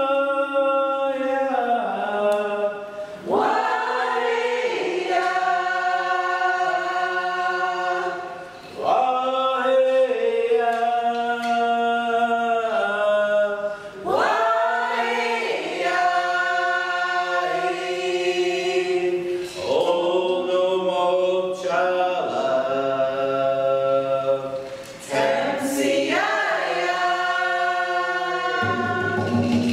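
A group of voices singing a traditional Northwest Coast First Nations song in unison. It moves in long held phrases, each opening with a rising swoop, with a short breath between phrases about every five seconds.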